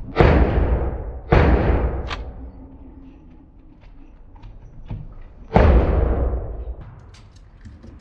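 Three pistol shots on an indoor range, each followed by a long echo that dies away over about a second: two close together near the start and a third about five and a half seconds in, with a smaller sharp click between them.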